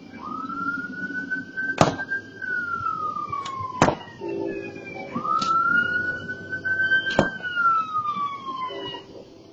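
Emergency vehicle siren wailing, rising and falling slowly through two full cycles. Sharp pops and cracks sound over it several times, and a low steady hum comes in about four seconds in.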